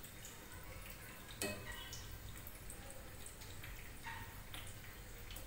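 Gram-flour-battered potato slices sizzling as they deep-fry in hot oil, with scattered small pops and crackles and one sharper click about one and a half seconds in.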